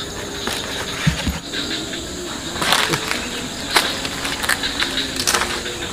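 A person climbing down a coconut palm: scattered knocks and scrapes of hands and feet against the trunk and fronds. A steady high insect drone runs behind.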